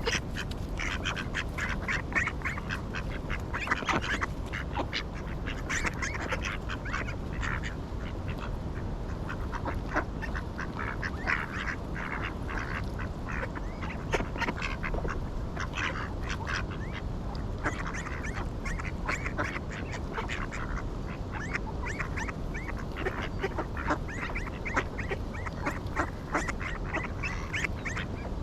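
A group of ducks quacking, many short calls overlapping throughout, over a steady low background noise.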